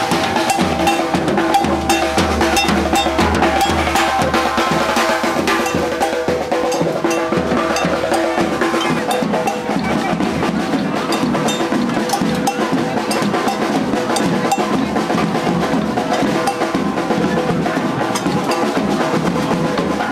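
Drumming: a dense run of rapid drum hits going on without a break.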